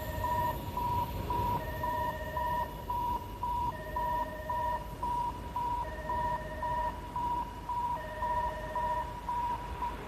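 Trackside train-approach warning alarm sounding to warn track workers that a train is coming: a high electronic beep about twice a second, overlaid with a lower two-tone sound that comes on for about a second every two seconds. The fast beeping stops near the end while the slower tone keeps going.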